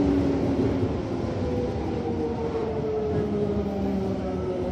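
Running noise inside a Toei Asakusa Line 5300 series subway car: the GTO-thyristor VVVF inverter whines as several thin tones sliding slowly downward, over the low rumble of wheels on track.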